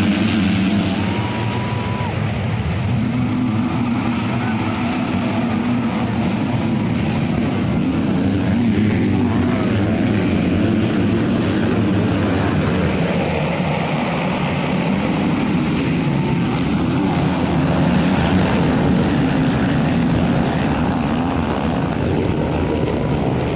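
Dirt bike engines running on an enduro course, a steady engine drone that rises and falls, with crowd voices behind.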